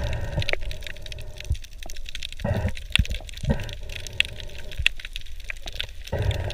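Sea water heard through an underwater camera housing: a muffled low rumble with scattered sharp clicks and crackles, and a few short louder swishes.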